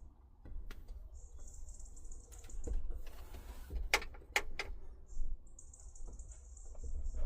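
Handling noises: a brief rustle, then three sharp knocks about four seconds in, over a faint high hiss that comes and goes.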